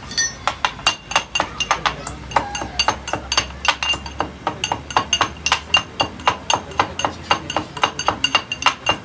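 A metal teaspoon stirring and clinking against the inside of a small steel cup: a fast, even run of bright ringing clinks, about four a second.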